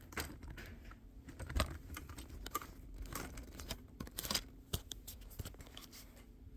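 Hands handling and routing a power cable back toward a sewing machine's servo motor controller: scattered light clicks, scratches and rustles, with a sharper knock about a second and a half in and a cluster of clicks a little past the middle.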